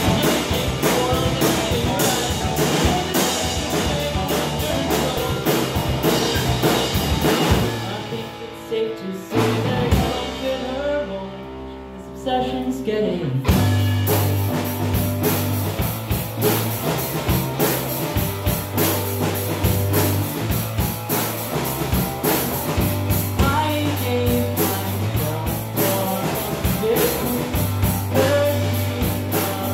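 Live rock band playing loudly: electric guitars and a drum kit. About eight seconds in the drums drop out, leaving a few seconds of ringing guitar. The full band crashes back in about thirteen seconds in.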